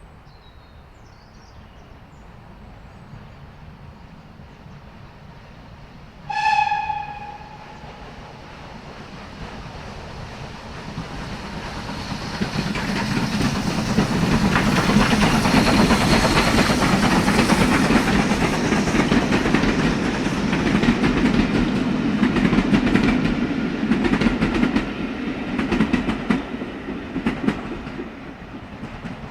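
A train passing by. It gives one short horn blast about six seconds in, then its rumble swells as it passes close, with rhythmic clickety-clack of wheels over rail joints, and fades away near the end.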